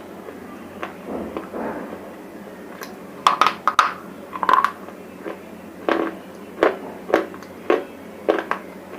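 Close-up crunching of dry, brittle bar chips being bitten and chewed. A soft rustle comes first, then a run of sharp, separate cracks about every half second.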